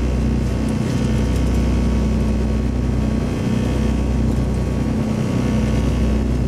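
Twin piston engines of a Rockwell Aero Commander 500S running at taxi power, heard inside the cockpit as a steady low drone.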